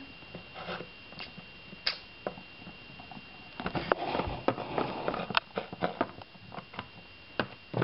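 Small plastic Littlest Pet Shop figurines handled and set down on wooden and foam surfaces: scattered light taps and clicks, with a short stretch of rustling about four seconds in.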